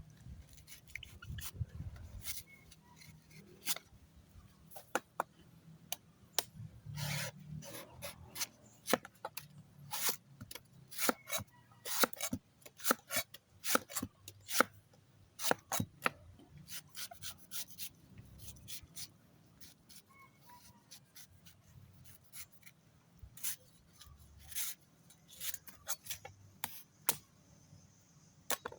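A knife cutting and scraping at a yellow coconut's husk: irregular sharp strokes, some short and clipped, some drawn out as scrapes.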